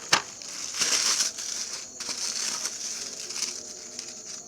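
Plastic parcel packaging crinkling and rustling as it is handled, with a sharp click near the start and bursts of rustling about a second in and again later.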